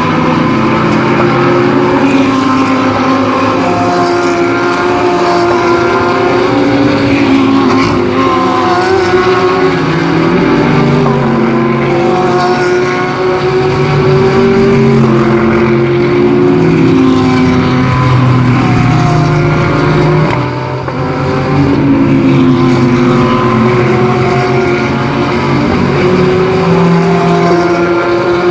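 Several GT3 race cars passing with their engines at full throttle, overlapping engine notes that climb and drop again through upshifts.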